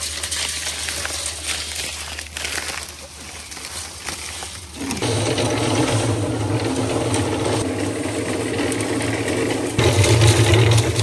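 Portable concrete mixer running with its drum turning and dry concrete mix sliding inside. About five seconds in the sound suddenly becomes louder and fuller as water is poured into the drum and the mix starts tumbling wet.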